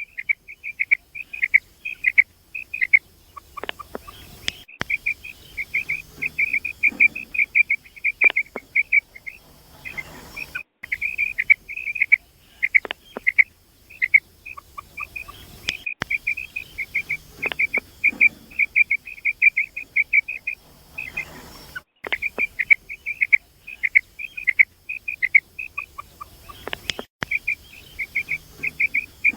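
Female common quail calling: rapid runs of short, high chirps in quick succession, broken by brief gaps every few seconds.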